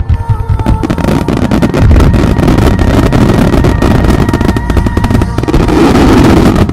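Japanese aerial fireworks going off in a dense barrage: many bangs and crackles a second, packed into a continuous rumble, with music underneath.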